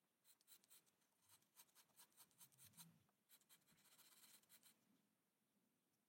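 Faint scratching in many short, quick strokes, stopping about three quarters of the way through.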